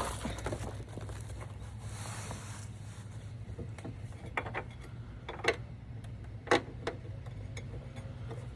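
A few short metallic clicks and knocks from handling the bolts and the steel side step rail, two sharper knocks past the middle, over a steady low hum.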